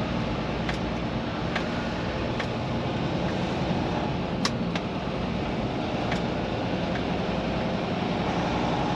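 Semi truck's diesel engine running steadily at low speed, heard from inside the cab, with a few sharp clicks and rattles, the loudest about halfway through.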